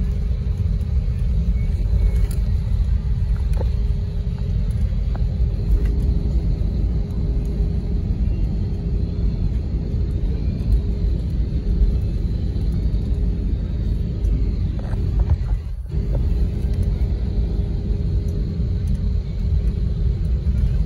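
Airbus airliner cabin noise heard from a window seat as the jet rolls along the ground: a steady low rumble with an even engine hum. The sound cuts out for an instant about three-quarters of the way through.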